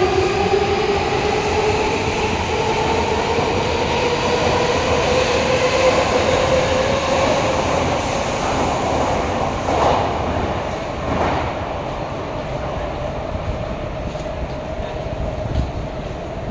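Odakyu electric commuter train pulling out of an underground station: its motors whine with a pitch that rises slowly as it gathers speed, over wheel rumble and a few knocks from the wheels on the rails. The sound fades near the end as the last car leaves the platform.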